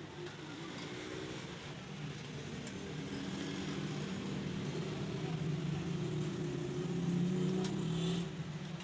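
A low motor hum, with a few faint clicks, that grows steadily louder and then falls away just before the end.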